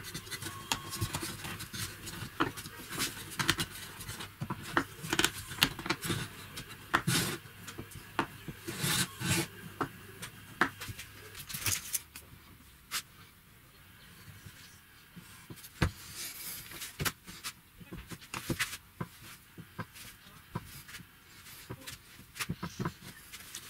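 Irregular knocks, clicks and short rubbing scrapes of wooden box parts and a metal rod being handled and set down on a wooden workbench.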